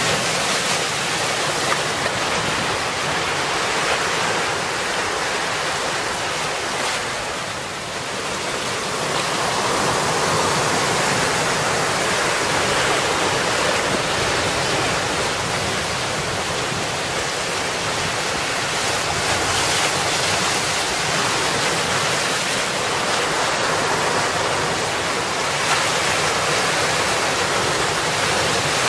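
Sea waves breaking and washing among rocks on the shore, a continuous rushing that dips briefly about eight seconds in.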